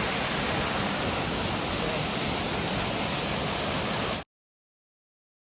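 Steady rushing of the MacKenzie Falls waterfall, which cuts off abruptly into dead silence about four seconds in.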